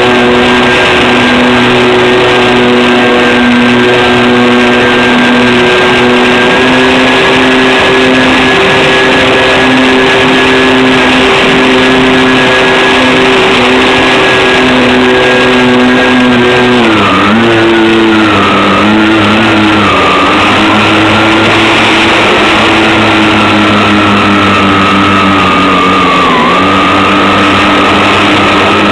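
Electric motors and propellers of a home-made twin-engine RC plane running at a steady high whine, the pitch dipping briefly a few times as the throttle is eased, about two thirds of the way in and again near the end.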